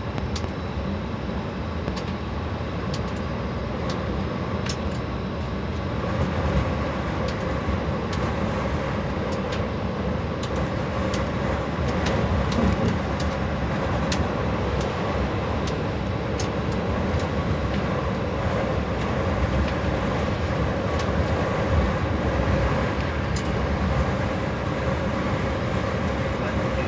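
Steady engine and tyre noise of a coach at motorway speed, heard from inside the passenger cabin, with light clicks now and then.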